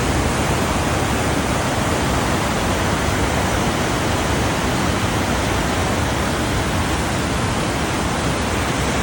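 Rhine Falls, a very large waterfall, rushing steadily as a loud, unbroken wash of falling water.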